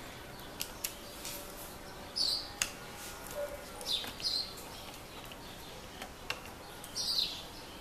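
Birds chirping in the background a few times. There are several sharp clicks of small parts being handled as a replacement cooler and heatsink is set into an opened laptop.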